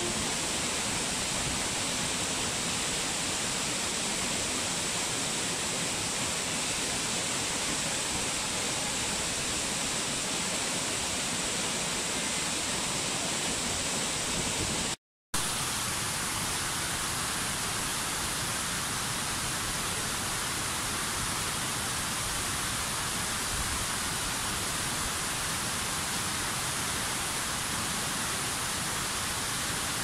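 Steady rushing of a waterfall, an even wash of falling water. About halfway through it cuts out for a split second, then resumes a little brighter and hissier.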